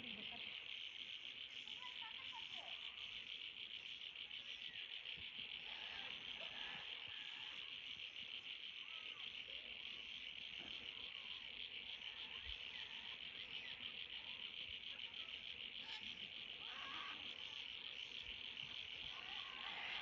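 A steady, high-pitched insect chorus with a fast, even trill.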